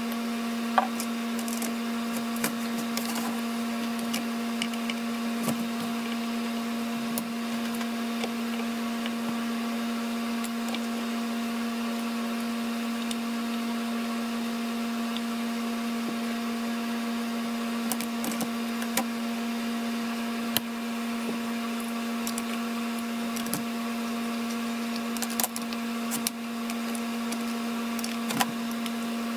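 A steady hum runs throughout, with scattered light clicks and clinks of a screwdriver, a wrench and loose screws against the metal parts of an antique paper cutter being taken apart.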